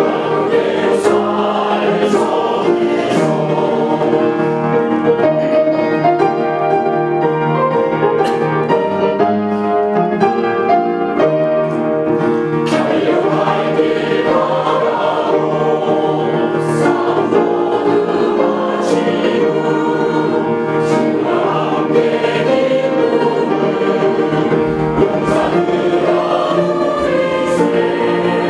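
A church congregation singing a Korean hymn together, many voices in chorus with accompaniment.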